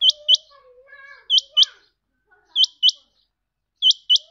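Male quail calling, a loud, sharp two-note call repeated four times, each pair of quick rising notes about a second and a quarter after the last.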